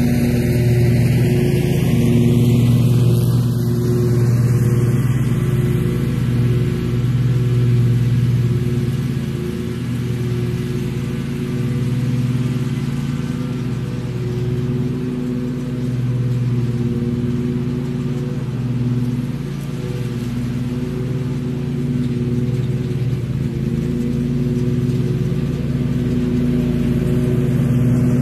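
Bob-Cat XRZ Pro RS zero-turn mower's engine running steadily at mowing speed. It grows a little fainter as the mower moves off, then louder again near the end as it drives back close.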